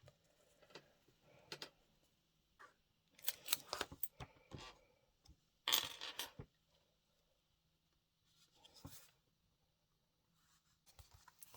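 Faint rustles and light taps of cardstock being handled, in a few short clusters with quiet between them.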